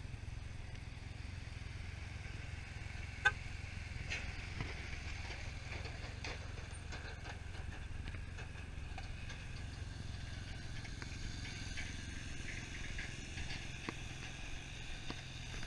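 ATV engines running with a steady low rumble, and one sharp click about three seconds in.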